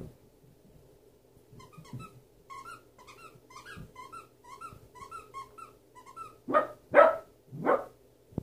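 A dog's squeaky toy squeaking in quick short squeaks, about two to three a second, as a dog chews it, then a dog barks loudly three times near the end.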